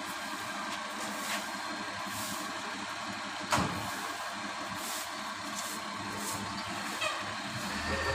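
Side-loader garbage truck idling steadily at the kerb, with a single sharp thump about halfway through.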